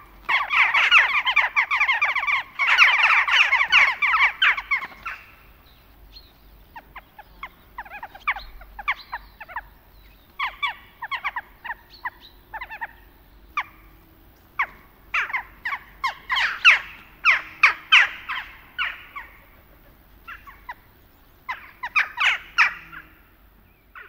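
A flock of jackdaws calling: a dense chatter of many overlapping short calls for about the first five seconds, then scattered clusters of short calls that stop shortly before the end.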